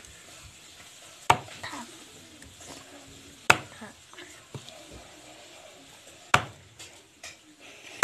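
A large broad-bladed knife chopping chicken on a round wooden chopping block: three sharp chops, two to three seconds apart.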